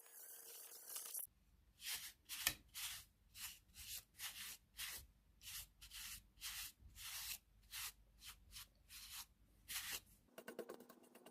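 Hand nail file rasping back and forth across a fingernail in short, even strokes, about two a second.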